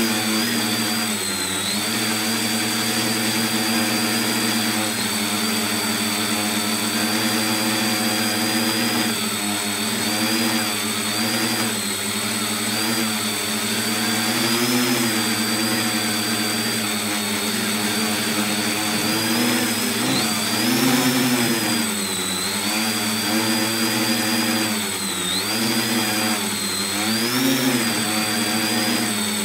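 Tricopter's three electric motors and propellers, heard close up from the phone mounted on the craft, buzzing with a high whine over them. The pitch rises and falls as the throttle changes, with the strongest swells about two-thirds of the way through and near the end.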